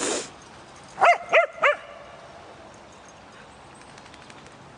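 Dog barking three times in quick succession, about a second in.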